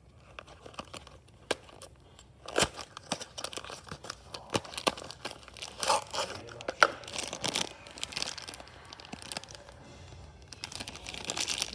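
Irregular crinkling and tearing noises with many scattered sharp clicks, as of something being handled and rustled.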